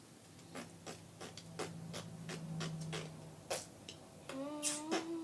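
Soft butter slime being squished and worked in the hands, making irregular sharp clicking pops. A steady low hum runs through the first three seconds, and a short rising voiced "hmm" comes near the end.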